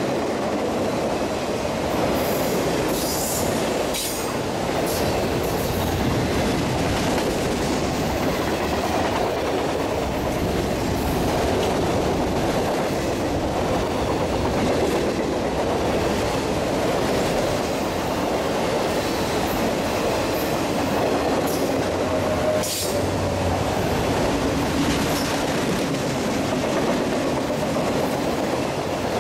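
Autorack freight cars rolling past on the rails: a steady rumble and rattle of wheels and car bodies, with sharp clicks now and then.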